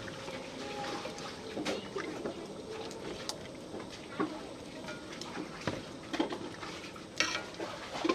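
Pot of water at a rolling boil as fresh greens are dropped in from a woven bamboo basket and pushed down with chopsticks, with several light clicks and taps against the metal pot.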